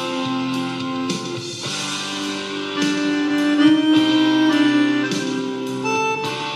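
Chromatic button accordion playing a melody over sustained chords, accompanied by a backing track with regular percussion hits.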